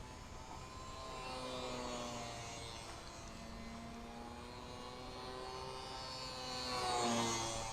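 HobbyZone Super Cub S RC plane's electric motor and propeller whining in flight, changing pitch with throttle. About seven seconds in it passes close, getting louder, and its pitch falls as it goes by.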